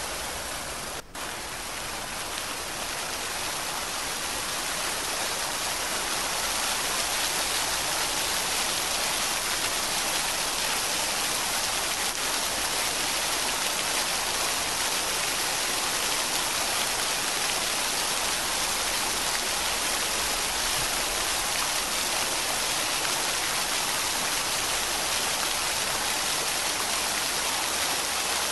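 Steady rain: a dense, even hiss of falling rain, dipping for a moment about a second in and growing a little louder after about five seconds.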